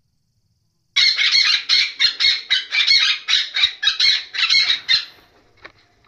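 Parrot calling: a rapid run of high, chirping calls, about four a second, starting about a second in and stopping suddenly about five seconds in.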